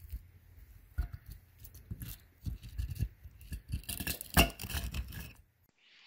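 Crispy air-fried chicken skin crunching and crackling as a fork tears into it: a run of irregular crunches, the loudest about four seconds in. The sound cuts off suddenly near the end.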